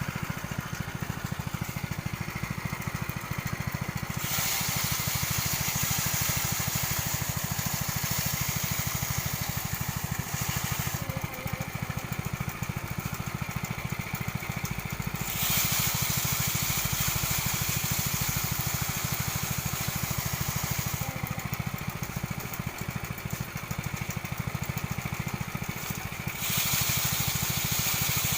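Small engine-driven rice thresher (pleser) running steadily. A loud hissing rush, rice being threshed, comes in three times for stretches of several seconds each.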